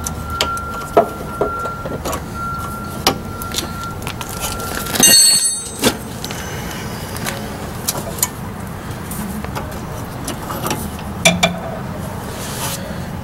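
Scattered light metallic clicks and clinks of hand tools and brake hardware as a car's rear disc brake caliper and parking-brake cable are worked on by hand. A faint steady whine runs through the first five seconds, and about five seconds in there is a louder rubbing noise lasting about a second as the camera is moved.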